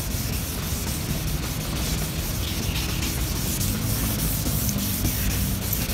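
1500-grit sandpaper rubbing back and forth on a plastic headlight lens, a steady scratchy hiss as the yellowed, oxidised surface is sanded off. Background music plays underneath.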